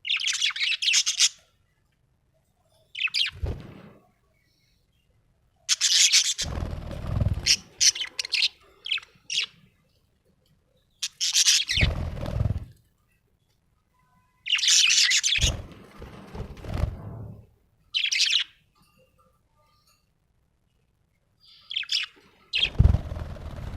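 Budgerigar chirping and chattering in bursts of a second or two with short silences between, with low thumps under several of the bursts.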